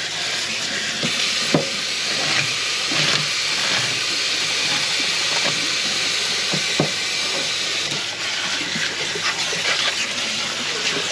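Kitchen tap water running steadily over a sink full of a'ama (Hawaiian black rock) crabs as they are rinsed off. A few sharp clicks stand out over the rushing water.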